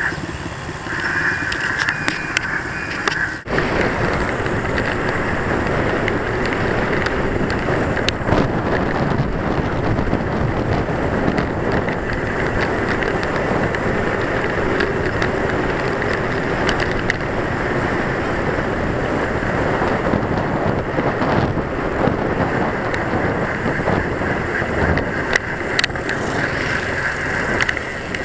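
Wind noise on the microphone and tyre and road rumble from a bicycle rolling along a paved road, steady throughout, with a brief dropout about three seconds in.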